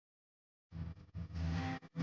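Silence, then background music comes in about two-thirds of a second in: a held low chord under a rustling, noisy top.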